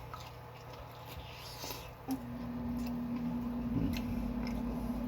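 Wet chewing and squishing of someone eating takeout noodles. About two seconds in, a steady low hum starts suddenly and keeps going.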